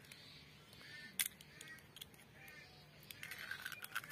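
Eggshell being pulled apart by hand over an enamel bowl of soaked soya chunks, the egg dropping in, with a few sharp clicks and taps of shell, the loudest about a second in. Short repeated calls sound faintly in the background.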